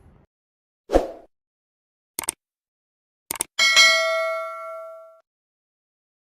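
A dull thump, then two quick double clicks, then a bright bell-like ding that rings out and fades over about a second and a half.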